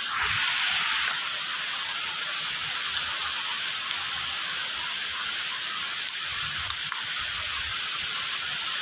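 Steady hiss of rushing water from the waterfall, with a few faint clicks and knocks.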